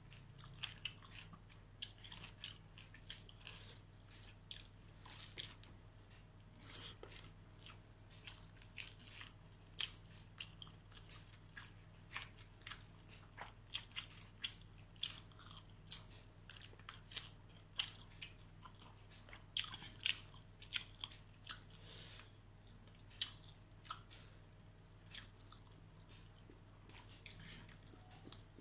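Close-up eating sounds of rice and chicken curry eaten by hand: irregular chewing and mouth clicks, with fingers working the rice on a steel plate.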